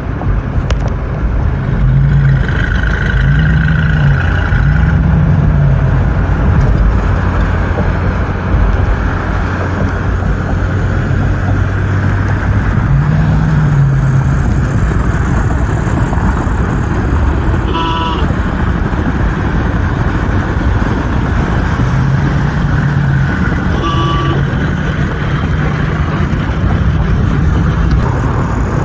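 Motor vehicle running on the road: steady road and engine noise with a low hum that swells and eases several times. Two short horn-like toots, at about 18 s and again at about 24 s.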